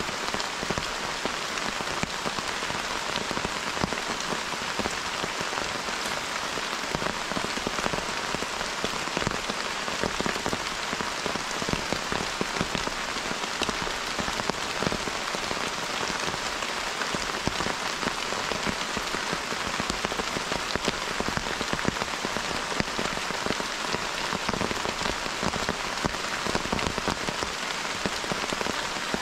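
Steady rain falling in the forest, a dense, even patter of drops on foliage.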